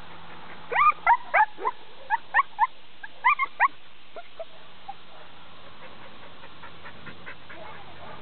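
Dog yipping: a quick run of about a dozen short, high yips starting about a second in and stopping after about three seconds, with a few faint ones later.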